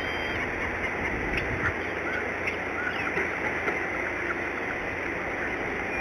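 Several faint, short, high chirps from eagles at the nest, scattered through the first half, over a steady hiss.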